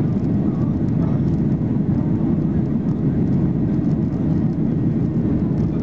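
Steady engine and airflow noise inside the cabin of a Boeing 737-800 with its CFM56-7B turbofans, an even low rushing sound with no change in pitch.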